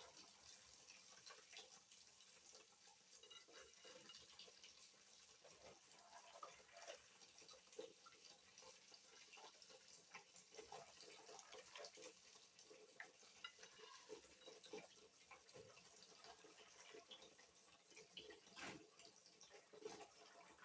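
Faint splashing and dripping of water as soaked soya beans are washed by hand in their soaking water, with small irregular sloshes and clicks throughout.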